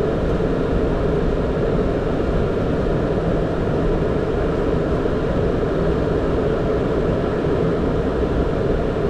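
Steady flight-deck noise of a Boeing 767 with its engines running: a constant low rumble with a hum, holding an even level throughout.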